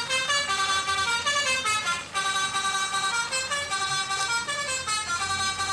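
Telolet basuri horn melody, the Indonesian bus-horn tune, played as a run of quick stepped notes.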